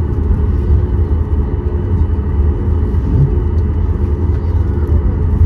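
Inside the cabin of a Boeing 737 MAX 8 taxiing after landing: a steady low rumble from its CFM LEAP-1B engines at idle and the rolling airframe, even throughout.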